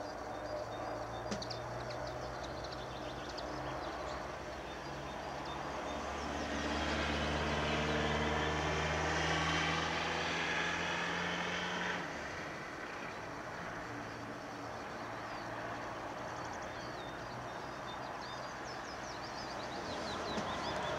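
A motor vehicle's engine runs steadily, growing louder about five seconds in and dropping off abruptly just past the middle. Small birds chirp high in the background.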